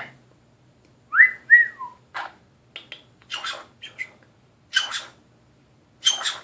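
Nanday conure calling: two short whistled notes that slide up and one that falls away, then a run of short, scratchy chirps.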